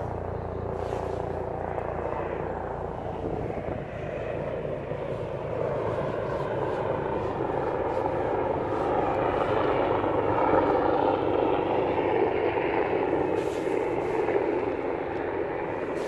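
Aircraft passing over, its engine noise swelling to a peak about ten seconds in and then easing off.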